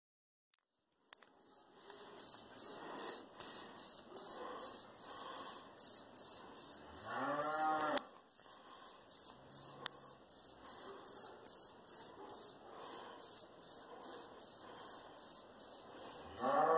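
Crickets chirping in a steady, even pulse. A cow moos once for about a second, around seven seconds in, and starts to moo again near the end.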